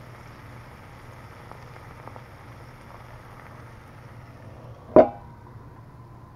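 Spam slices and eggs sizzling in a cast iron skillet. About five seconds in, a stainless steel lid is set on the pan with a loud clank and rings briefly, after which the sizzle sounds muffled.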